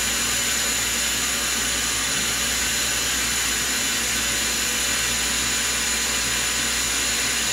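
Power-driven tool spindle of a Star SR-32J CNC Swiss lathe running at a steady 2,000 rpm: an even mechanical hiss with a faint steady high tone.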